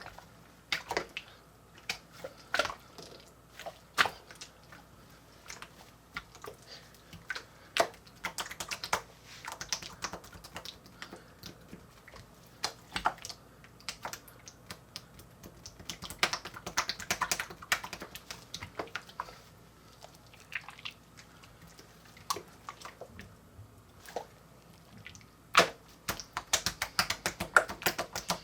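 Hands squeezing and stretching wet, sticky Coca-Cola slime, making irregular squelches and sharp sticky clicks and pops that come in flurries, over the faint steady hum of a room fan.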